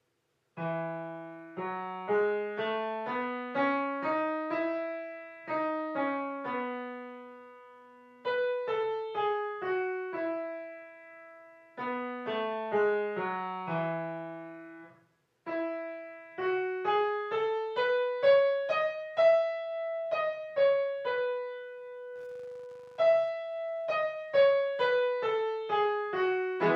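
Kawai piano played with both hands: a simple piece in short phrases whose notes climb and then fall back. It starts about half a second in, with a brief stop about halfway through before the next phrase.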